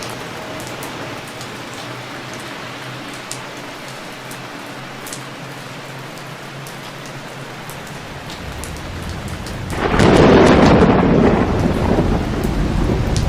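Heavy rain falling steadily with scattered drop ticks. Thunder starts rumbling in about eight seconds in, then breaks loud about ten seconds in and rolls on to the end.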